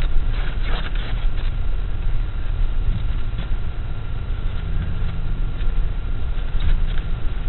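Interior of a pickup truck cab while driving over a grassy field: a steady low rumble of engine and tyres on rough ground, with a few short knocks about a second in and again near the end.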